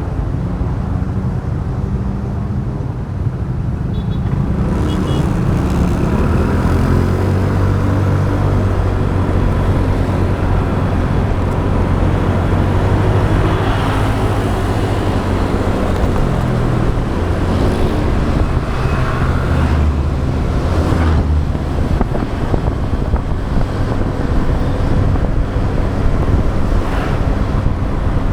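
Motorbike engine running while riding, heard from the rider's own bike together with road and wind noise. The engine note steps up about five seconds in and changes again mid-way, and a few brief noise swells, like passing traffic, rise and fall.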